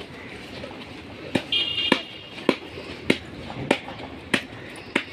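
A run of sharp clicks at an even pace, about one every 0.6 seconds, starting about a second and a half in. A brief high-pitched tone sounds just after the first click.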